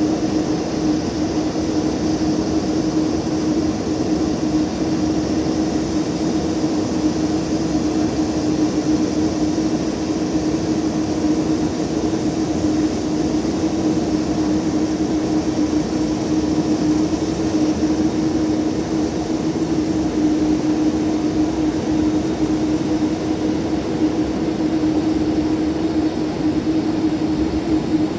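Boeing 777 jet engine noise, steady, with a constant low droning tone; the level holds even, with no rise or fall.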